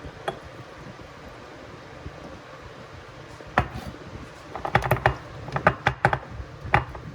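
Sharp knocks and clicks of jar-packing: a single click just after the start, then a quick irregular cluster of them from about three and a half seconds in, as ingredients are pushed into a pickling jar.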